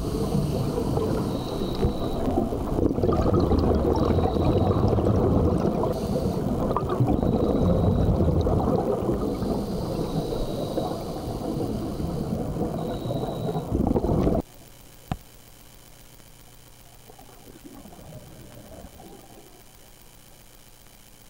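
Scuba divers' exhaled bubbles rushing and gurgling underwater, heard through the camera housing. It cuts off suddenly about two-thirds of the way through, leaving only a faint hiss.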